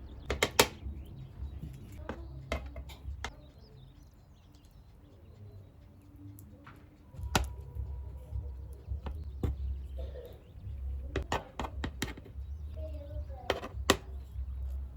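A series of light knocks and clinks, as of objects being handled and set down, irregularly spaced with a cluster near the start and several more in the second half.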